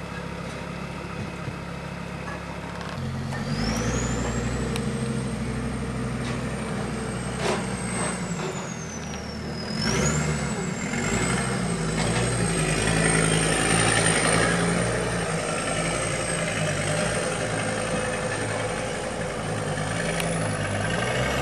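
Engine of a small snowplough utility truck running as it clears the street, getting louder about three seconds in as it comes closer, with a thin high whine that rises, dips briefly, then holds steady.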